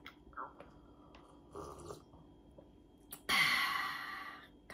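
A woman sips coffee with a few faint sips. Then, about three seconds in, she lets out a loud, breathy exhale of satisfaction that fades over about a second.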